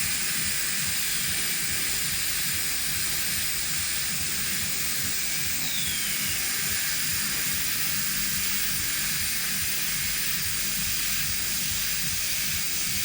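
Steady hiss of dental operatory equipment with a faint low hum underneath, unchanging throughout.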